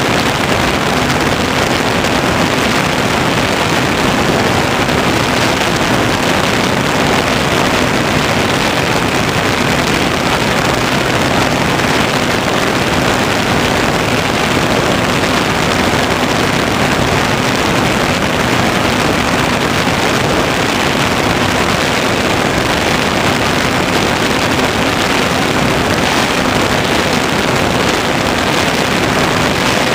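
Onboard-camera sound of an Easy Glider Pro RC motor glider in flight: a steady, loud rush of airflow noise on the microphone with a constant low hum underneath, unchanging throughout.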